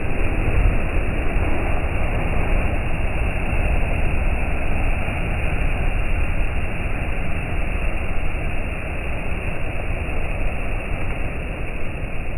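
Sea waves breaking and washing in: a steady, loud rush of surf.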